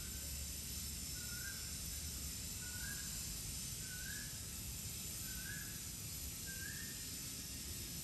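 A bird calling a series of short whistled notes, one every second or so, each a little higher than the last, over a steady hiss.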